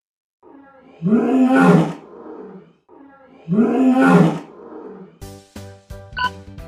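Lion roaring twice, each roar deep and about a second and a half long. From about five seconds in, music with a steady beat takes over.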